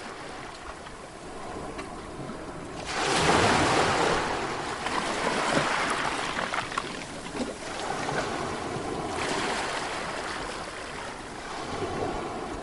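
Sea waves breaking on a shore: a wave crashes about three seconds in and its rushing wash carries on, easing off later, before the next swell starts to build near the end.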